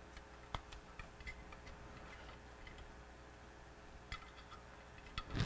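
Faint, scattered light clicks and ticks as lead wires are pulled through a pump motor's metal cradle bracket and handled against the motor, with a louder knock near the end.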